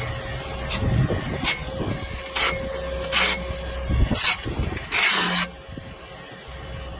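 About six short rasping scrapes, the later ones longer, the last about half a second. Under them runs the steady low rumble of an idling truck engine.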